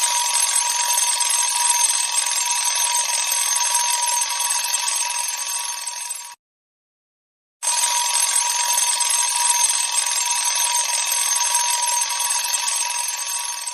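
Alarm clock ringing continuously in two long bursts of about six seconds each, with a silent pause of about a second between them and each burst fading slightly toward its end.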